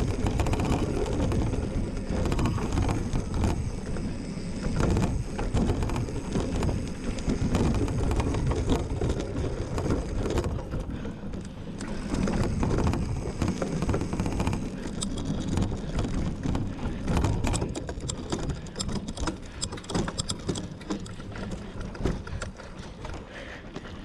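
Mountain bike ridden over rough cross-country ground: a continuous rumbling of tyres and clattering of frame and chain, with a run of sharp clicks and rattles in the second half.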